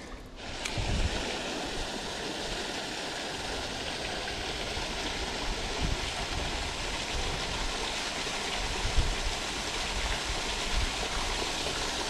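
Steady rush of water spilling through the closed gates of a river lock and falling into the lock chamber.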